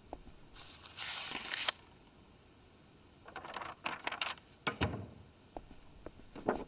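Sheets of paper rustling as a stack is handled and shuffled on a desk, in two spells of about a second each, followed by a few light knocks and taps.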